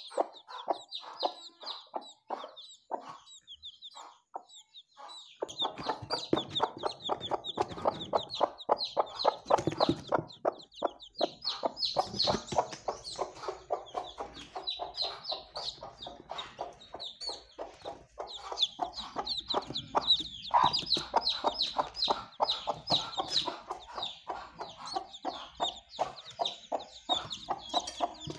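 Newly hatched chicks peeping continuously in short, high, falling notes. A broody native hen clucks rapidly among them from about five seconds in.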